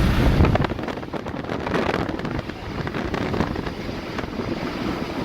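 A vehicle driving along a road: road and engine noise with many small knocks and rattles, after a loud low rumble drops away about half a second in.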